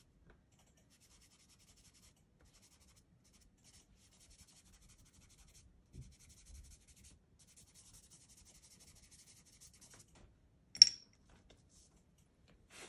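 Soft pastel stick scratching and rubbing faintly across textured sketchbook paper in short strokes, with a soft knock about halfway through. Near the end there is a single sharp click, the loudest sound, as the pastel is set down on a ceramic plate.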